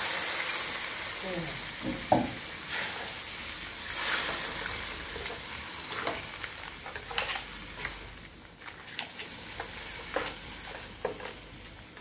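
Crab, prawns and squid sizzling in a hot wok just after a splash of water has gone in, while a spatula scrapes and taps against the wok in stir-frying. The sizzle is loudest at first and dies down over the next several seconds.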